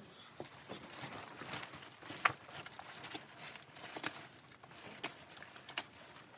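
A series of irregular light knocks and crunches, roughly two a second, over a faint steady hiss; one sharper click a little past two seconds in is the loudest.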